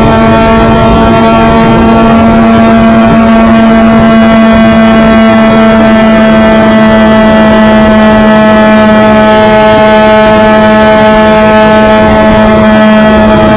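Onboard sound of a Formula Mazda race car's rotary engine held at high, nearly constant revs at full throttle, with wind buffeting the microphone.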